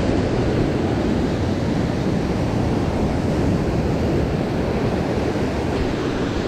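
Sea surf breaking and washing over a rocky shore, a steady rushing sound.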